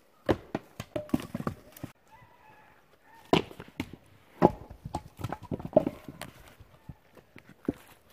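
Split firewood blocks knocking and clattering against each other as they are thrown onto a woodpile: a quick run of hard wooden knocks in the first two seconds, then single loud knocks every second or so.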